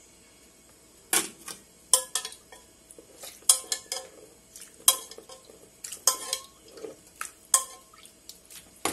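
Metal spoon clinking against a metal pot while scooping out cooking broth: a string of sharp clinks starting about a second in, several with a short ring.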